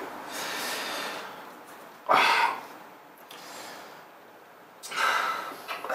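A man breathing noisily through his nose and mouth as he sips beer from a glass, with two short, louder breaths about two and five seconds in.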